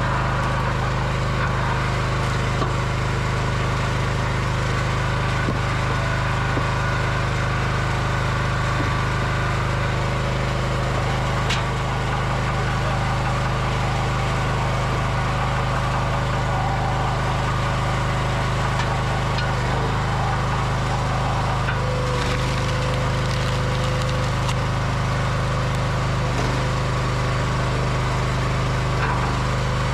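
Small engine of a hydraulic log splitter running steadily, with occasional cracks and knocks of wood as logs are split on the multi-way wedge and the split pieces are handled.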